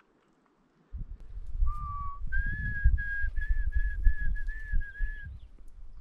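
A person whistling a simple tune: one lower held note, then a run of about eight short notes at a slightly higher pitch, ending about five seconds in. A low rumbling noise runs underneath from about a second in.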